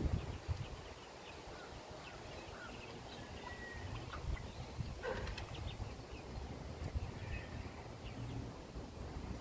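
Backyard chickens making a few faint, scattered clucks and calls over a low, steady rumble.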